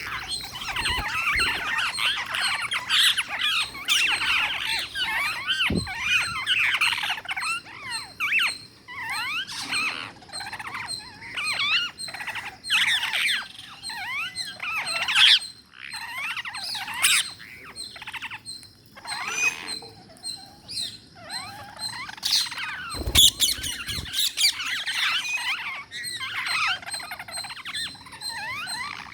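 Parrots chattering and squawking: a dense run of quick, rising and falling chirps with short pauses, and one brief low thump about three quarters of the way through.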